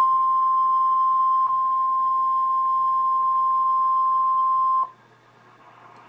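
A NOAA weather radio sounding its single 1050 Hz warning alarm tone, the signal that a warning message such as this severe thunderstorm warning is about to be read. One steady, loud, high beep that cuts off suddenly about five seconds in, leaving a faint hiss from the speaker.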